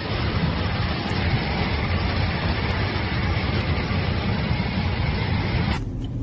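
A car running, heard from inside the cabin: a steady rumble of engine and road noise. It drops away abruptly near the end.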